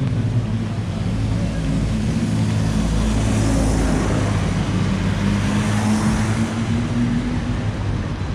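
City street traffic: a vehicle engine running steadily close by, with the hiss of traffic on the wet road swelling twice as vehicles pass.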